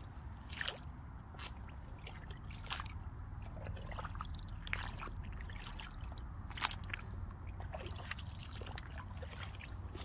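Aigle rubber wellington boots squelching and splashing step by step through waterlogged grass and shallow water, with wet footfalls coming roughly once a second.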